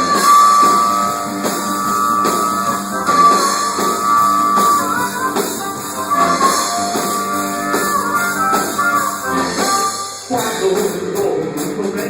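Rock music with guitar and drums playing an instrumental passage, with held lead notes; the arrangement shifts about ten seconds in.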